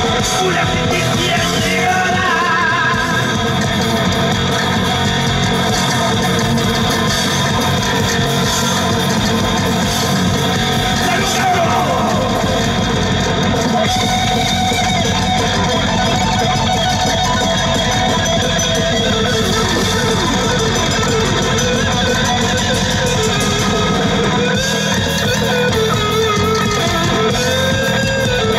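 Live rock band playing loud through a PA: distorted electric guitars over drums and bass, with wavering, bending melody lines throughout.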